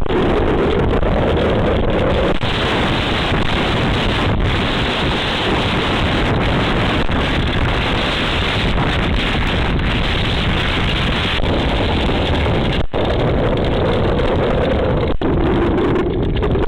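Storm wind buffeting the microphone: a loud, steady rush of noise.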